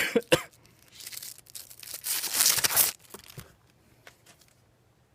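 Two sharp clicks, then a rustling, tearing noise that grows louder about two seconds in and lasts about a second, followed by a few faint ticks: hands working with parts and wrapping during a turn-signal install.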